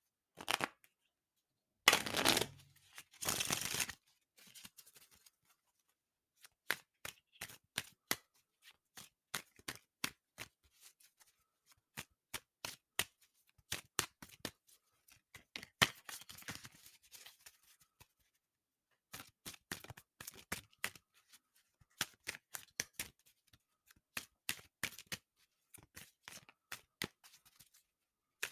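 A deck of playing cards being shuffled and handled: a few louder rustling bursts of shuffling in the first four seconds, then a long run of sharp card clicks and snaps, several a second, with a brief pause about two-thirds through.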